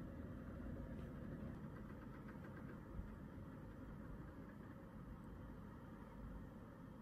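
Faint steady low rumble of background noise, with one soft tick about three seconds in.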